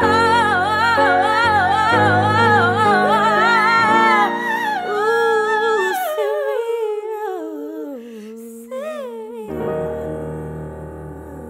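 Female pop power-ballad vocal over piano chords, held on long notes with a heavy, wavering vibrato. About six seconds in the backing drops away and the voice slides downward on its own. A sustained chord comes back in near the end as the song fades.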